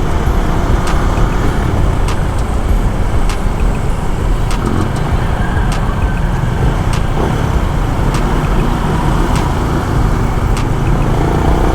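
Steady low rumble of wind and road noise from riding a motorcycle through city traffic, with faint light clicks every second or so.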